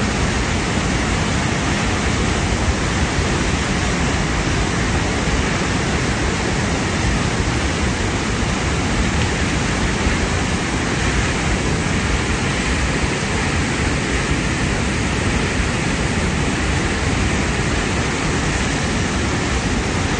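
Muddy floodwater from cyclone rain pouring over a cliff as a waterfall, a loud, steady rush of falling water.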